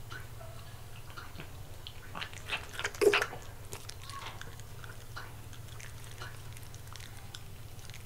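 West Highland terrier biting and chewing grilled lamb off a wooden skewer, close to the microphone: soft scattered chewing clicks, with a run of louder bites about two to three seconds in. A faint steady hum sits underneath.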